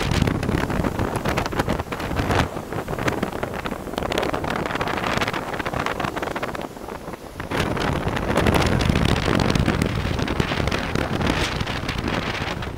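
Gusty wind buffeting the microphone, with ocean surf breaking behind it; the gusts ease briefly a little past the middle.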